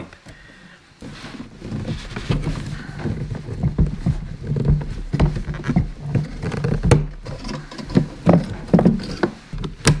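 Hands fitting a flexible metal exhaust pipe onto a diesel heater's exhaust outlet inside a plastic case: irregular knocks, clicks and rustling of handling.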